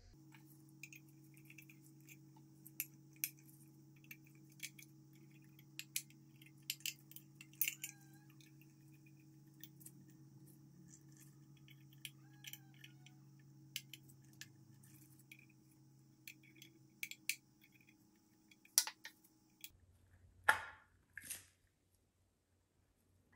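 Small metallic clicks and taps as brass clock parts are handled and worked with a small steel tool, scattered irregularly throughout. Near the end come two louder ringing metal scrapes as the brass case is fitted back together.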